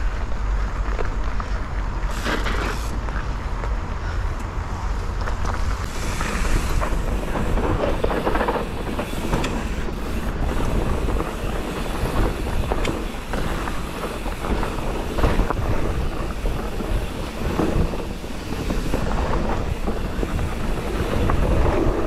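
Mountain bike riding down a rough dirt trail: a continuous rattle and clatter of the bike and its tyres over the ground, with a steady low wind rumble on the microphone.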